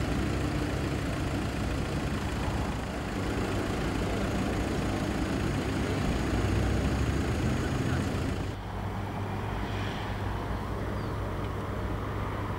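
Steady idling vehicle engines and road traffic with a low hum. About eight and a half seconds in the sound cuts abruptly to a slightly quieter, steadier hum.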